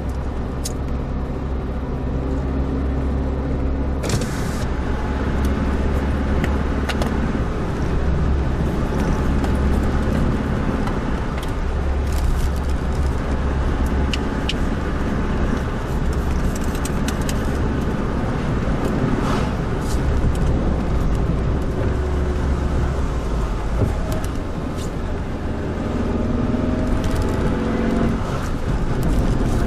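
Suzuki Jimny Sierra on the move: a steady engine drone with tyre and road noise. The engine note steps to a new pitch a few times as speed changes, with a few brief clicks and rattles.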